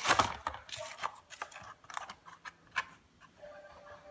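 Plastic blister packaging of a die-cast toy car being handled and pried open: scattered sharp clicks and crackles of the plastic, denser at first, then a few sparse snaps.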